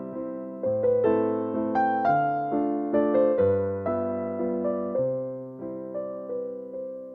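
Background music: a slow, gentle piano piece, with plucked notes that start sharply and fade in a steady rhythm.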